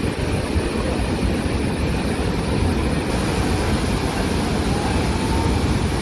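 Athirappilly waterfall in heavy flow: a steady, dense rush of falling water, heaviest in the low rumble.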